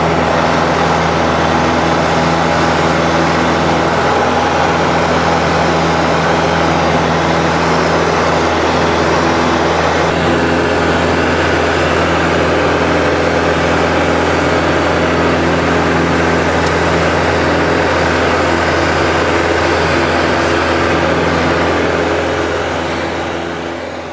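Robin DR400-160's four-cylinder Lycoming O-320 engine and propeller at takeoff power during the takeoff roll and climb-out, heard from inside the cockpit: a loud, steady drone that fades out near the end.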